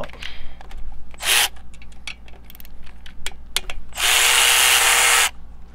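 Milwaukee Fuel cordless ratchet backing out the timing-chain tensioner bolts: a short burst about a second in, then a steady motor run of just over a second near the end. Light metallic clicks of the tool and bolt fall in between.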